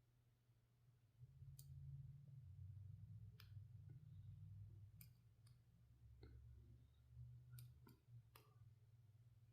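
Faint, irregular clicks of a lock pick working the pin stack of a Master Lock 911 padlock during single pin picking, about eight in all, over a low rumble of the lock being handled.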